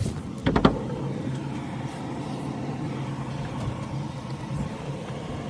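A car's steady running hum, with a few sharp knocks about half a second in.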